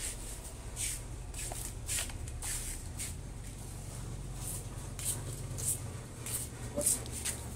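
Plastic packaging rustling and crinkling in a plastic shopping basket as it is carried, in short irregular bursts, over a steady low hum.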